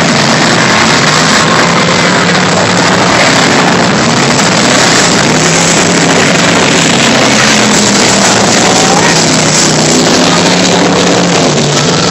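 A pack of race car engines running loud together, their pitches wavering up and down as the cars circle and pass.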